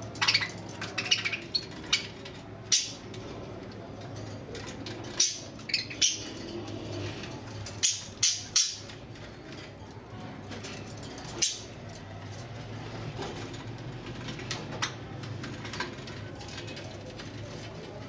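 Caged budgerigars giving short, sharp high chirps, scattered singly and in a quick cluster at the start, over a steady low hum.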